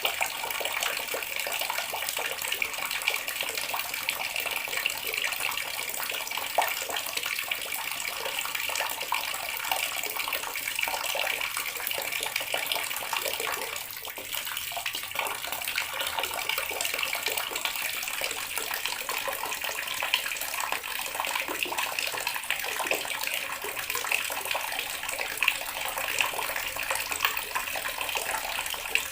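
Water running steadily from a tap, splashing as it falls.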